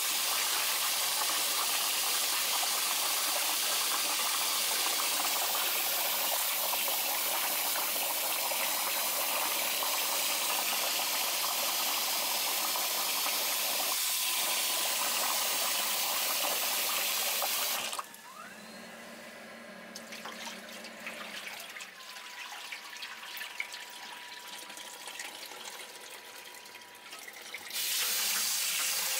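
Kitchen tap running hard into a metal bowl of water while a hand swishes salmon roe through it to rinse it. About two-thirds through the water stops for roughly ten seconds, leaving faint small knocks, then runs again near the end.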